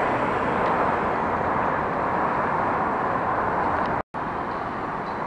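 Steady road traffic noise from cars driving past on a busy multi-lane bridge. The sound cuts out for a split second about four seconds in.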